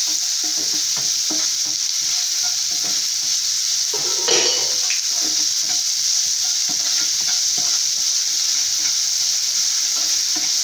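Sliced onions frying in coconut oil with a steady sizzle. A wooden spatula stirs them, scraping and tapping the non-stick pan several times a second, with one louder scrape about four seconds in.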